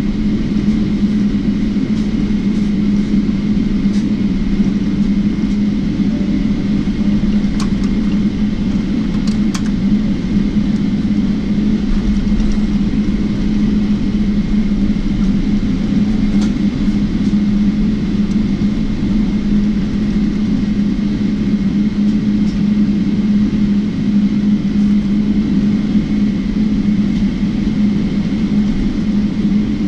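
Cabin noise of a Boeing 777-300ER taxiing with its GE90-115B engines at idle: a steady drone with a strong low hum and a faint high whine, and a few light clicks about eight to ten seconds in.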